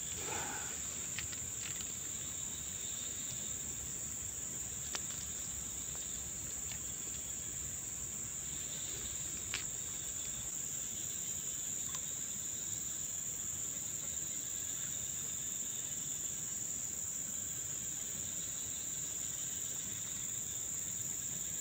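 Steady high-pitched insect chorus, a continuous cricket-like trill, with a few faint clicks.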